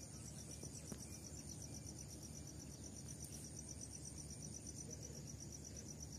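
Insects chirring in a steady, rapid even pulse, with a second thin, high steady tone that stops about five seconds in, over faint low background noise.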